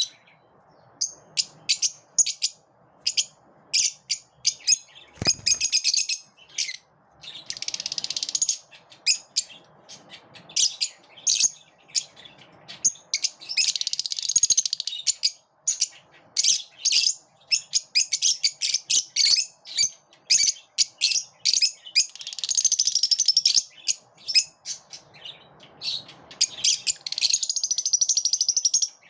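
A flock of pet lovebirds chirping and chattering: a string of sharp, high chirps broken by several stretches of rapid, continuous chatter. A single short knock about five seconds in.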